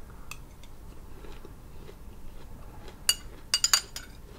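Metal spoon clinking against a small glass bowl: a few faint taps, then one sharp ringing clink about three seconds in, followed half a second later by a quick run of three or four clinks as the spoon scoops.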